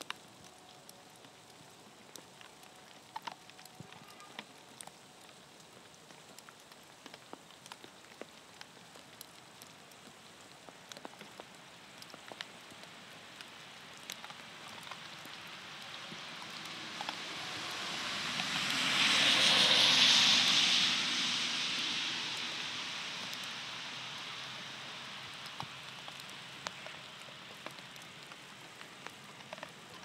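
Dog crunching dry kibble, heard as scattered sharp clicks, while a vehicle passes on a wet road: a hiss of tyres on wet asphalt swells to a peak about two-thirds of the way in and slowly fades.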